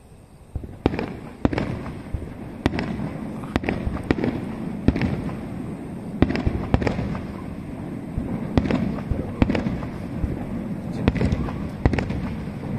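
Aerial firework shells bursting overhead: a rapid series of sharp bangs, beginning about a second in, with rumbling echoes filling the gaps between them.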